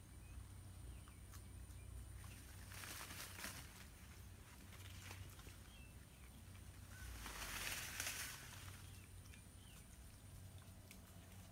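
Quiet forest ambience with wild pigs rooting and rustling in leaf litter, two brief louder rustles about three and eight seconds in, the second the loudest. Faint bird chirps now and then.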